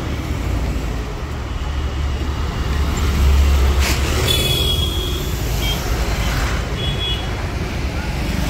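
City road traffic: engines and tyres rumbling steadily, swelling as a truck passes about three seconds in. A sharp noise comes near four seconds, and short high-pitched tones sound around four and a half and seven seconds.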